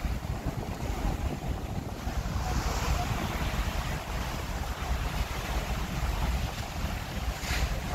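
Wind buffeting the microphone on a ferry's open deck, over the steady rush of the ferry's churning wake.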